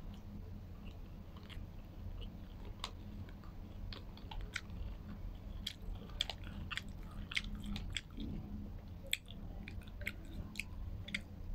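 Close-up chewing of a mouthful of shawarma, with irregular small wet clicks and crunches from the mouth over a steady low hum.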